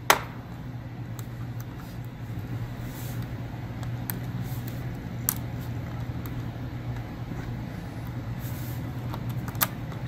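Faint ticks and taps of a plastic pry tool and fingers working a laptop ribbon cable into its connector, with one sharp click right at the start. A steady low hum runs underneath.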